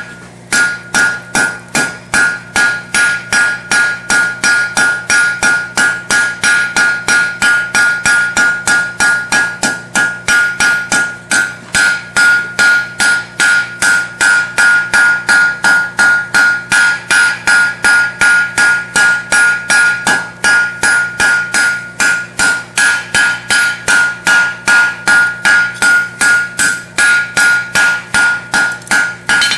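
Hand hammer drawing out red-hot 3/8-inch round steel bar into a long taper on an anvil: a fast, even run of blows, about three a second, each with a ringing note from the anvil.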